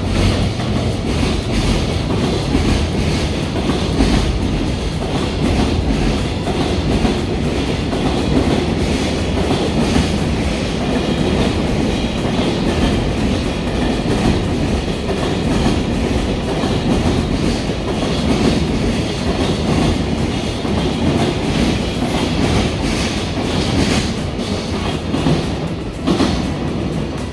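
Freight train passing close by: a steady rumble of wagons, with wheels clattering over the rail joints.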